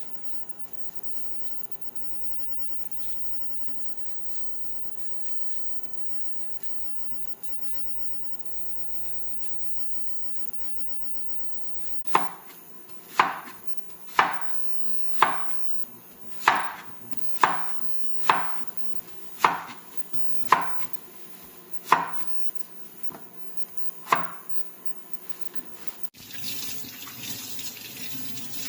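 Knife chopping on a cutting board: eleven slow, sharp strokes about a second apart, starting about twelve seconds in after a stretch of faint background hum. Near the end a kitchen tap starts running.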